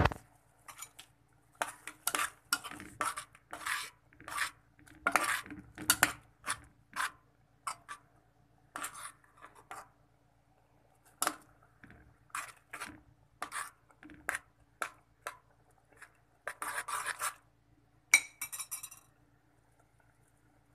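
A utensil stirring instant noodles in a metal pot, with irregular clinks and scrapes against the pot. Near the end comes one louder clink that rings briefly.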